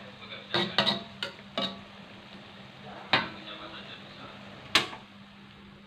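Stainless steel spatula clanking and scraping against a metal wok while stir-frying vegetables: a quick run of sharp knocks in the first two seconds, then single clanks about three and five seconds in.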